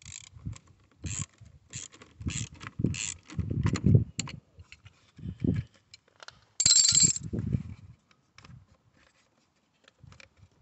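Screwdriver and socket wrench knocking, clicking and scraping against the hard plastic fuse box cover on a car battery. A quick run of knocks and clicks fills the first four seconds, and a louder harsh scrape comes about six and a half seconds in.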